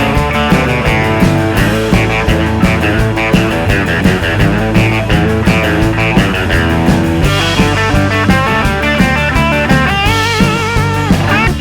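Rock music with electric guitar and drums, a steady beat, with a bending lead guitar line coming in about seven seconds in.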